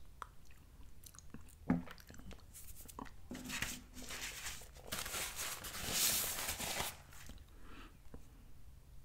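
A ceramic mug set down on a table with one sharp knock, then a few seconds of close mouth noises of eating and breathing after a sip of tea.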